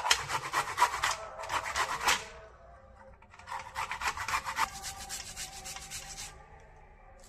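Fresh ginger root being grated on a hand grater: quick rasping strokes, loudest in the first two seconds, pausing briefly about halfway, then continuing more softly.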